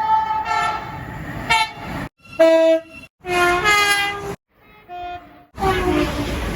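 Train air horns sounding a chord of several notes in a string of short blasts, about five in all, each cut off abruptly before the next begins.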